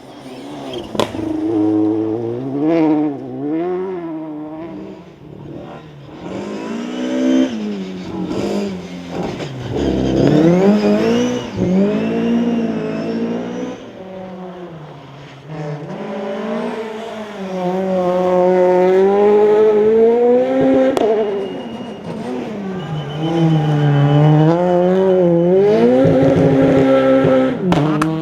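Two-wheel-drive rally car engines at full throttle, the note repeatedly climbing and dropping sharply as the drivers shift gears and lift for corners.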